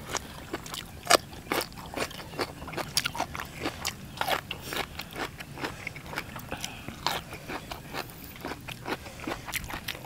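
Crisp crunching and chewing of raw asparagus spears, an irregular run of sharp crackles several times a second.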